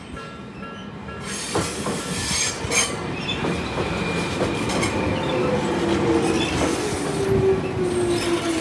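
A Jomo Electric Railway electric train passing over a level crossing. Its wheel and running noise swells about a second in, and from the middle on a whine falls slowly in pitch. The crossing's warning bell rings underneath.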